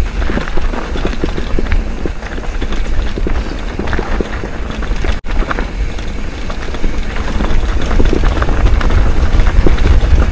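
Wind buffeting the microphone in a heavy low rumble, over the clatter and crunch of a mountain bike's tyres and frame rattling down a rocky dirt trail. The sound cuts out for an instant about five seconds in.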